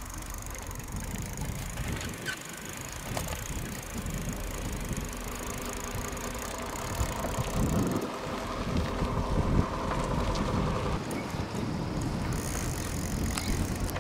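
Bicycles rolling along a dirt road and then pavement: tyre noise with small rattles and clicks from the bikes, over a steady low rumble on the microphone.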